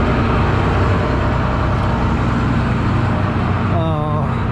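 Combine harvester's diesel engine running steadily at close range, with a brief wavering higher-pitched sound near the end.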